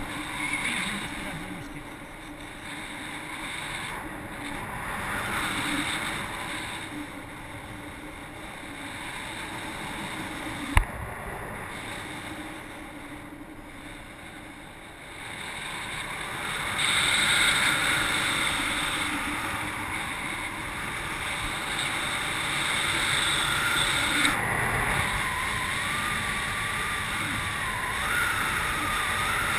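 Airflow rushing over the action camera's microphone on a paraglider in flight, swelling and easing, and louder from a little past the middle. A single sharp click comes about a third of the way in, and a faint wavering tone sounds near the end.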